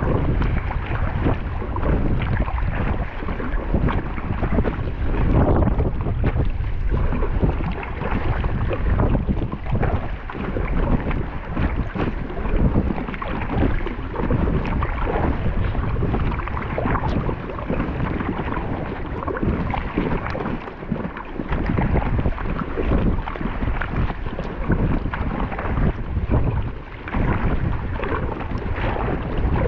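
Wind buffeting the microphone over water splashing against a kayak, a loud, gusty rush that never lets up.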